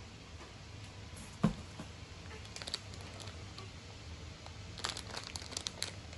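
Cardboard and packing rustling and crinkling as cats poke into an open box, in short clusters of crackles, the busiest near the end. A single dull thump about a second and a half in.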